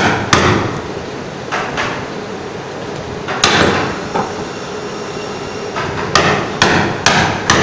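Wooden mallet striking the wooden handle of a chisel, driving it into a wooden workpiece. Sharp knocks come in irregular bunches: a pair at the start, another pair about a second and a half in, one hard blow about three and a half seconds in, then a quicker run of about five blows near the end.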